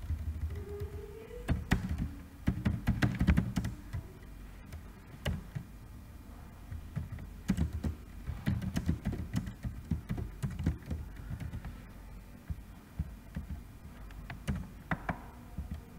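Typing on a computer keyboard in irregular bursts of keystrokes with short pauses between.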